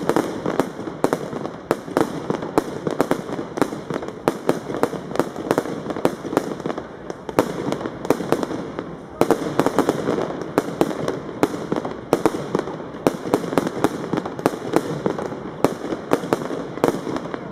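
Bon Fireworks 'Colourful Thunder Tail' consumer fireworks cake firing shot after shot, a rapid, uneven run of sharp bangs, about three to four a second, with no pause.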